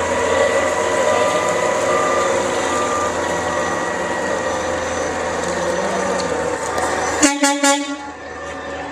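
Peterbilt garbage truck running with a steady engine drone and whine. About seven seconds in comes a short burst of loud horn toots.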